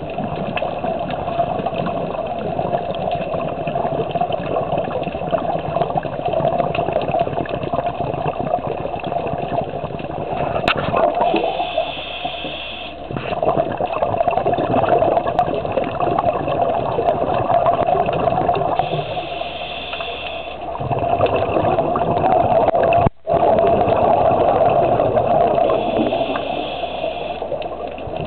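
Scuba breathing heard underwater: a continuous bubbling rumble of exhaled air from divers' regulators, with a higher hiss that comes and goes about every seven seconds as a breath is drawn. The sound cuts out for an instant about two-thirds of the way through.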